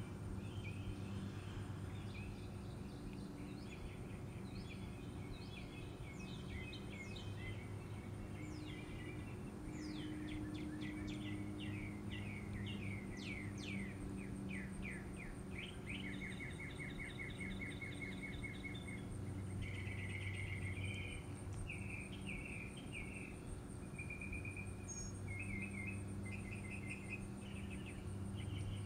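Songbirds singing and calling: quick chirps, downward-sweeping notes and rapid trills, changing phrase every few seconds. Under them runs a steady low hum and a thin, steady high-pitched tone.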